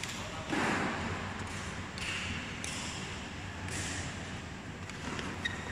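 Sports hall background between badminton rallies: a steady low hum with a short, louder noisy burst about half a second in and a few brief scuffs after it.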